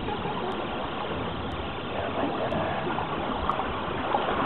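Steady rush of seawater washing and sloshing into a rocky tide pool, with the surf behind it.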